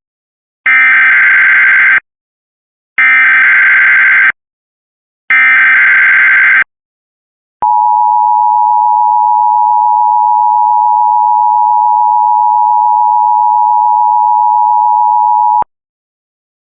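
Emergency Alert System SAME header: three bursts of digital data screech, each about a second long and a second apart. These are followed by the EAS two-tone attention signal, 853 and 960 Hz sounded together, held steady for about eight seconds and then cut off sharply. Together they mark the start of an emergency alert, here a required weekly test.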